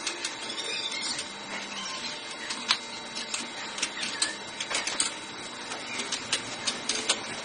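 Irregular small clicks and taps of wires and fittings being handled inside a gas cooktop's tray, over a steady hiss. They come more often in the second half, and the sharpest click is a little before the middle.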